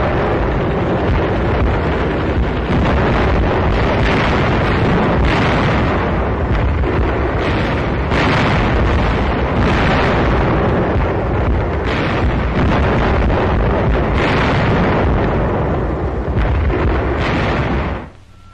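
Battle sounds from an old newsreel soundtrack: artillery gunfire and explosions, a continuous loud din broken by sharp blasts about once a second. It cuts off suddenly near the end.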